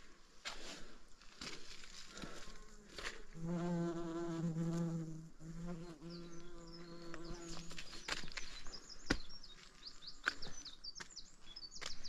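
A flying insect buzzing steadily at a low, even pitch for about four seconds, with a couple of brief breaks. Quick, high chirping notes follow near the end, with scattered light clicks.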